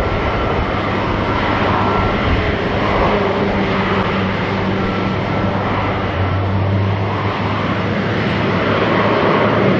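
Steady turbine noise from an Airbus A350-900 airliner during pushback by a tug: a dense rumble with a low hum and a thin whine that fades in and out.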